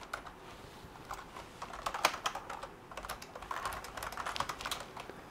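Typing on a computer keyboard: a run of irregularly spaced key clicks as a short line of text is typed.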